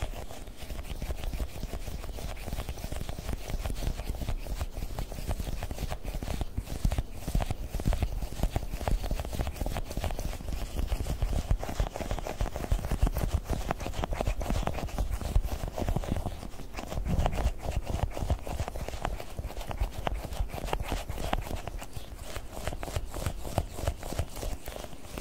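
Rapid fingertip tapping on Globbles squishy gel toy balls, a dense run of soft, dull taps, many a second.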